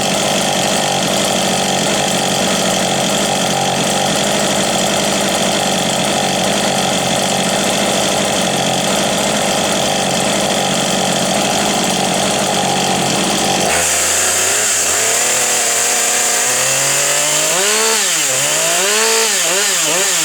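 Husqvarna 555 chainsaw fitted with a high-performance 62cc engine, running loud at a steady high speed. About fourteen seconds in the note changes, and then the throttle is revved up and down several times.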